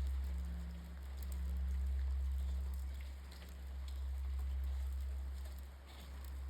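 Kōya Shirō, the great bonshō temple bell of Kōyasan's Danjō Garan, ringing out after a strike. It gives a deep hum that swells and fades about every two and a half seconds, and its higher tone dies away about five seconds in.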